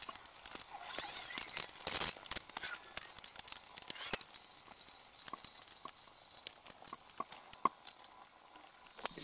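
Hand tools and steel bolts clicking and clinking as the valve cover bolts of an Ingersoll-Rand air compressor head are undone and laid down. Light, irregular metal clicks, with a louder scuffing noise about two seconds in and a few short ringing pings later on.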